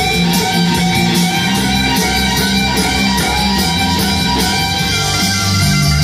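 A live band plays a loud instrumental metal cover on electric violin, Highland bagpipes and drum kit. Held low notes sit under steady, even cymbal strokes.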